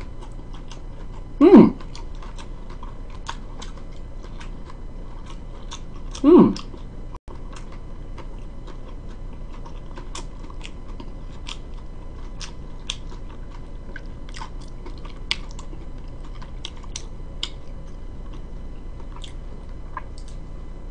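A person chewing pizza close to the microphone: small wet mouth clicks and smacks throughout, with two short loud sounds about a second and a half and six and a half seconds in.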